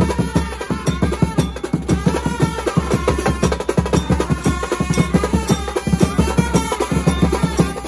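Indian street brass band playing live: a large stick-beaten barrel drum and snare-type side drums pound out a fast, dense rhythm while saxophones and trumpets play a wavering melody over it.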